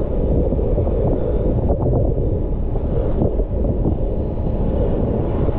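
Wind buffeting the microphone of a moving motorbike, a steady low rush, with the bike's road and engine rumble underneath.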